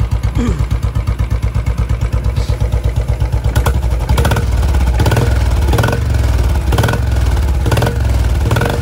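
Royal Enfield Classic 500's fuel-injected single-cylinder 500 cc engine idling with an even, pulsing thump, then revved with the throttle from about four seconds in, running louder in repeated surges.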